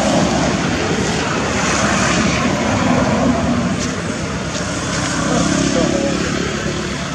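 Steady motor-vehicle engine and road traffic noise, a continuous rushing drone with a faint low hum in the middle.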